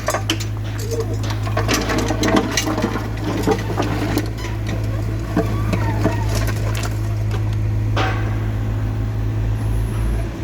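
Excavator's diesel engine running steadily, with irregular knocks and rattling of concrete being broken up and moved, thickest in the first few seconds and again about eight seconds in.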